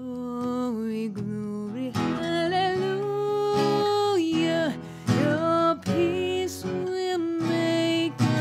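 A woman singing to her own strummed acoustic guitar, holding a long wavering note near the middle.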